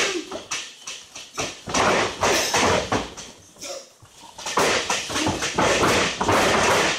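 Wrestling brawl in the ring: shouting and yelling with thuds and bumps of bodies on the ring. Loud and rough, easing off briefly in the middle before picking up again.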